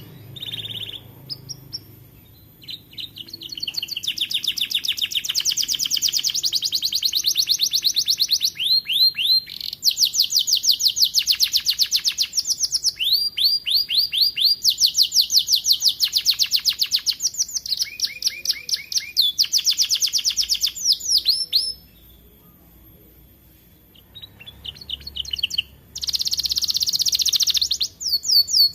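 Young domestic canary singing: fast trills of short rising notes repeated many times a second, in phrases that switch note type every second or two. The song breaks off for about three seconds a little past the middle, then starts again.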